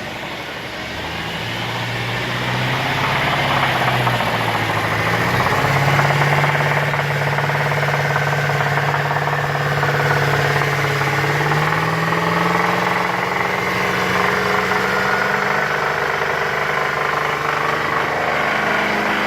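A 2010 Chevrolet Traverse's 3.6-litre V6 is held at raised revs, stepping up to a higher steady speed twice. It carries a noise that the owner cannot place between rod knock and a timing chain.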